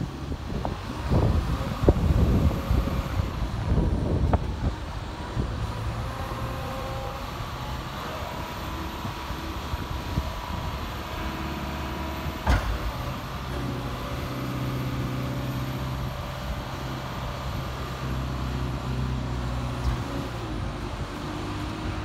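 Manitou MLT 840 telehandler's diesel engine running steadily while the boom is lowered and the bucket tipped down, with gusts of wind on the microphone in the first few seconds. The engine note grows stronger past the middle, and there is one sharp knock about halfway through.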